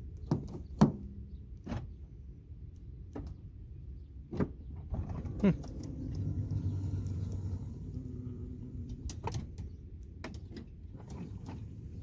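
Sharp clicks and clunks of a car's door latches and lock actuators, then a low, steady motor hum from about five to nine seconds in as a power sliding door moves, worked by the key fob.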